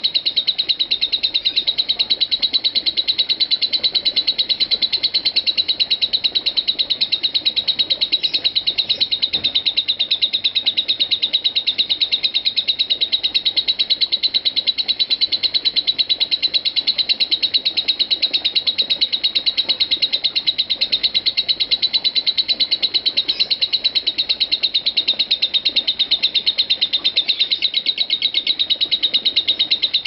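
Lovebird ngekek: a rapid, unbroken string of high chirps at an even pace and steady loudness, the long continuous chattering song prized in lovebird contests.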